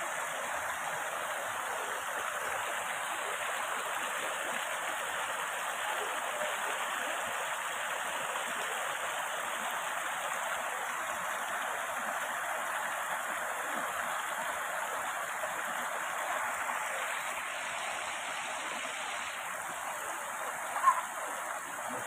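Rocky mountain stream rushing over boulders: a steady, even rush of water, with one short sharp knock near the end.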